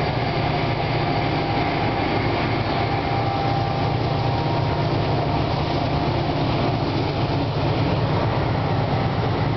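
CN freight train passing: the diesel locomotive runs by, then freight cars roll past on the rails. The sound is steady and even, weighted low.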